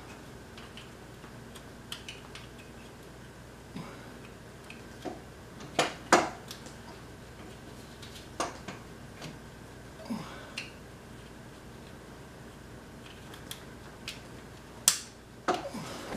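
Sporadic light metallic clicks and clinks of hand tools and parts being handled, with a few sharper knocks, the loudest about six seconds in and again near the end.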